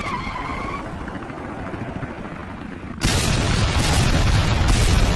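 Cartoon sound effects: a steady rushing noise, then about three seconds in a sudden, loud explosion that keeps going, as a missile blows up a helicopter.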